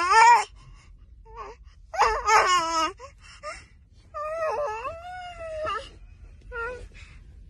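A baby's high-pitched, drawn-out wails rise and fall in pitch, four or so of them. The longest lasts nearly two seconds, and short squeaks fall between them.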